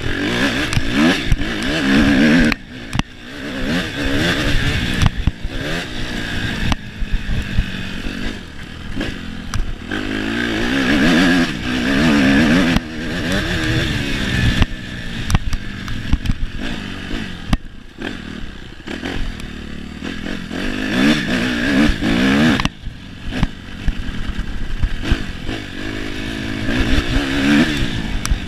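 Suzuki RM-Z motocross bike's four-stroke single-cylinder engine revving up and down hard as it is ridden on a dirt track, the throttle shut off sharply several times between pulls, with the bike rattling over the ground.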